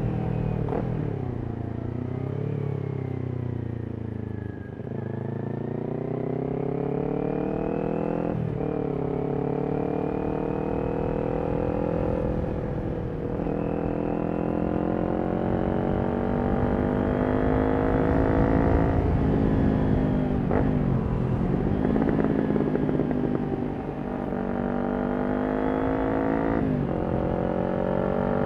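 Kawasaki Ninja 400's parallel-twin engine through a Yoshimura exhaust, pulling through the gears. The revs climb steadily and then drop sharply at each shift, about six times.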